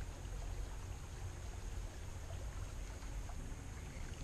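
Quiet outdoor background: a steady low rumble with an even hiss over it, and no distinct event.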